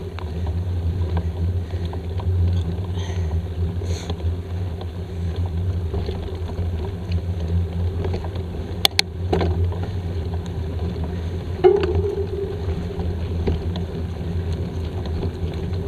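Mountain bike riding fast down a dirt forest trail, heard from an on-board camera: a steady low rumble of tyres on the ground and wind on the microphone. Two sharp clicks come about nine seconds in, and a short knock near twelve seconds.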